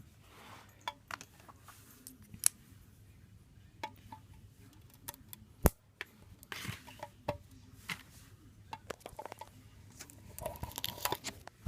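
Packaging on a small collectible being worked open by hand: scattered clicks and snaps, the sharpest about two and a half and five and a half seconds in, with a flurry of rustling near the end.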